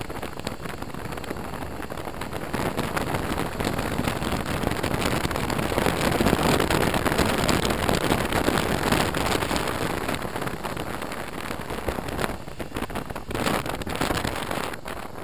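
Wind rushing over a helmet-mounted camera while riding a BMW R1200RT motorcycle. The rush is louder in the middle and turns gusty near the end.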